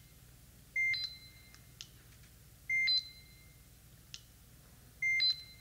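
LPI LT-2D3D laser templator beeping three times, about two seconds apart, each a short high-pitched electronic beep. Each beep signals that the laser has taken a good measurement of a point on the wall, after which the head can be moved to the next point. Faint clicks come between the beeps.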